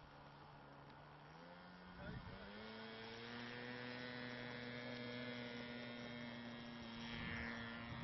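A Richmodel Keekat radio-controlled model plane's motor running at a low steady pitch, then throttling up about two seconds in and holding a higher steady pitch for the takeoff run and climb-out.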